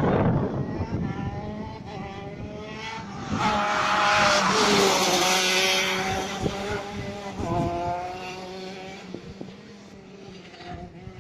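Go-kart engines running at racing speed. One is loud at the very start, another grows louder and passes about four to five seconds in with its pitch dropping, and then the engine sound fades into the distance.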